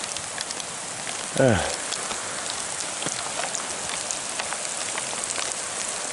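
Hail and rain pelting the bushes and ground: a steady hiss dotted with many sharp ticks of individual hailstone hits. About a second and a half in, one short, loud sound drops steeply in pitch.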